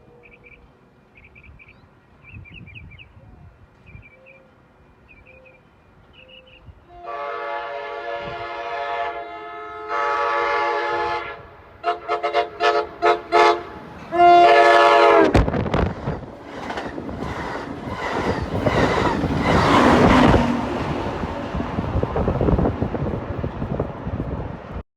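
Amtrak Pacific Surfliner train horn playing a horn show: two long blasts, a quick run of about five short toots, then a final long blast, after which the train passes close by with loud wheel and rail noise. Faint short beeping is heard in the first few seconds before the horn.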